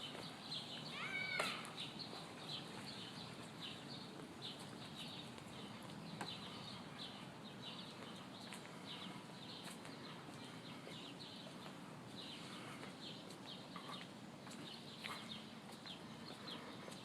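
Birds chirping faintly and repeatedly in short high notes, with one louder, drawn-out call that rises and falls about a second in.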